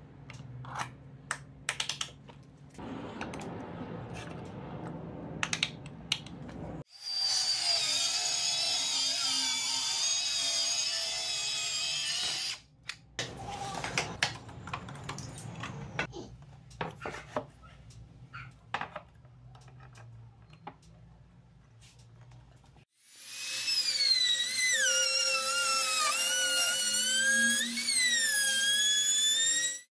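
Handheld trim router running and cutting along a straightedge across a plywood panel, its high whine dipping and rising as the bit takes the load; it starts suddenly about seven seconds before the end and runs to the end. Earlier, a power tool runs steadily for about five seconds, amid scattered knocks and clicks from handling wood.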